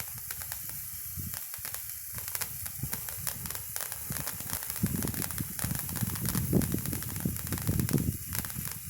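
Patriot Stick colour sparkler burning with a steady crackling sizzle, like bacon frying. A louder low rumble joins it about five seconds in.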